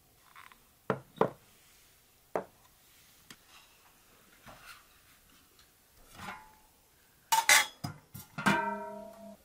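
Dishes and utensils knocking and clinking, with a few scrapes. Near the end comes a quick run of louder clatters, and the last one leaves a metal vessel ringing with a clear pitch that fades over about a second.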